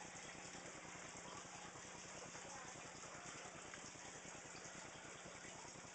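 Near silence: a faint, steady background hiss with no distinct events.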